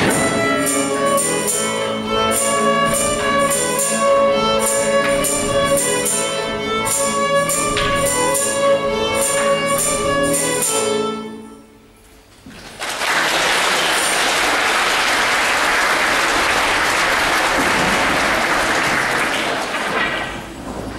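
Folk band with fiddles and double bass playing a lively dance tune over sharp rhythmic clicks; the tune ends about halfway through. After a short pause the audience applauds for several seconds.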